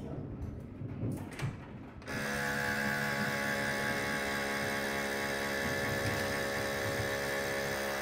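A few clicks and knocks as the countertop vacuum sealer's lid is pressed shut. About two seconds in, its pump motor starts and runs with a steady hum, drawing the air out of the bag before sealing.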